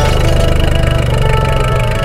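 Engine sound effect for a cartoon monster-truck bus, running steadily with an even low pulse, under faint background music.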